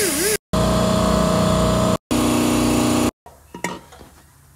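Die grinder spinning an abrasive cleaning disc against the face of an exhaust flange, dressing the gasket surface: a loud high whine with hiss, broken into short takes by brief cuts. About three seconds in the grinding stops, leaving a low background with a couple of light clicks.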